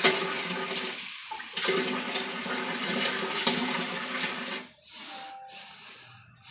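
Kitchen tap running water into a measuring cup, with a brief break a little over a second in; the flow stops just before the five-second mark.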